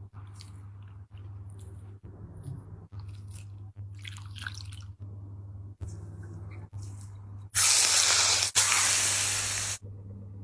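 Close-miked eating: small wet chewing and slurping noises over a steady low hum. Near the end comes a loud rushing hiss lasting about two seconds, broken once.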